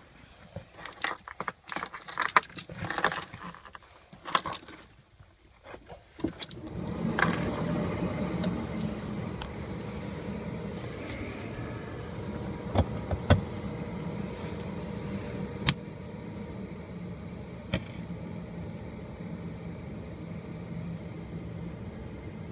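Car keys jangling for the first few seconds as the ignition key of a Mercedes W115 diesel is fitted and turned. A steady low hum then sets in, with a few sharp clicks, while the glow plugs preheat before a cold start.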